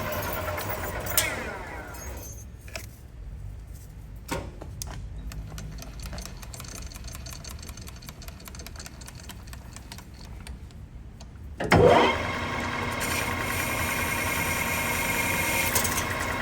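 Metal lathe motor and spindle running, then winding down about a second in. A few clicks and a fast light ticking follow while it is stopped. Near the end the lathe starts up again with a loud surge and runs steadily.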